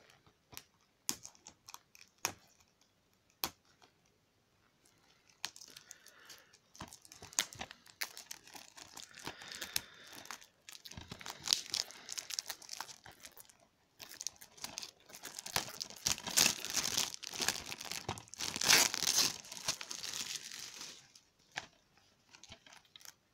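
Cellophane shrink-wrap on a DVD case being slit with a knife and torn off: a few scattered clicks at first, then a long stretch of crinkling and tearing plastic, loudest near the end.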